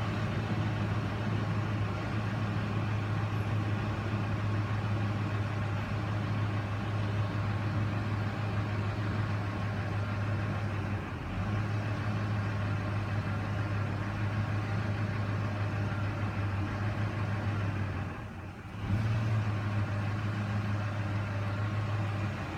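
2005 Ford F-150's 5.4 L Triton V8 idling roughly, with the idle sagging briefly about halfway through and again near the end.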